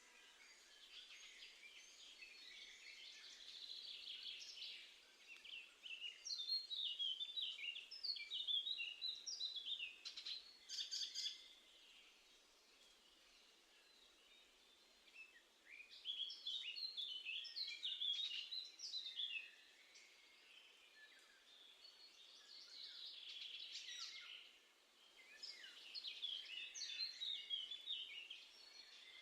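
Garden songbirds singing: phrases of quick, high twittering notes a few seconds long, repeated with short pauses between.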